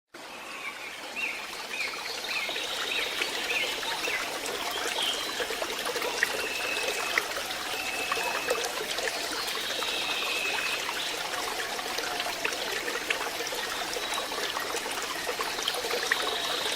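Water trickling and running steadily, with birds calling over it: at first a quick series of about six short chirps, then several longer whistled notes.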